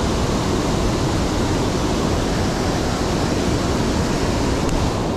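Steady rush of water pouring over a dam spillway, an even, constant roar of falling and flowing water.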